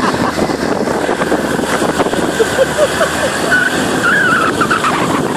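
Small motorboat under way: the steady rush of its engine, the water and the wind.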